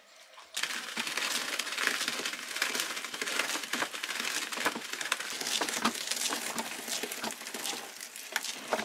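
Copier Land S-190 hand-cranked paper shredder chewing through a sheet of paper as its crank is turned: a dense, steady rustle of cutting paper studded with many small clicks, starting about half a second in.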